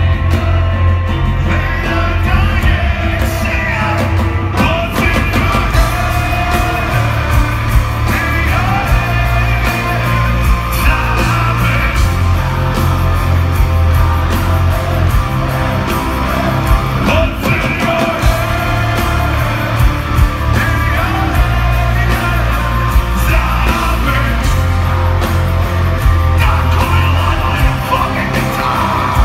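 Live rock band playing loud: a male singer sings and yells over drums and a heavy, booming low end.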